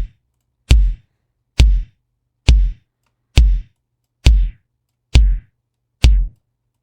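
Synthesized electronic drum hits looping in LMMS, one about every 0.9 seconds (seven in all), each with a deep low end and a short noisy crack on top. On the last few hits the crack grows duller and narrower as a low-pass filter is applied to the drum.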